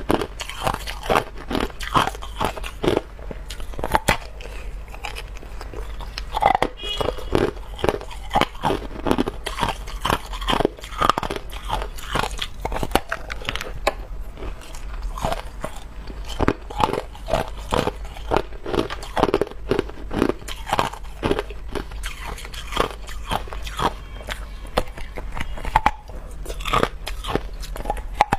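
Hard clear ice being bitten and chewed close to a clip-on microphone: sharp cracks and crunches, irregular and several a second.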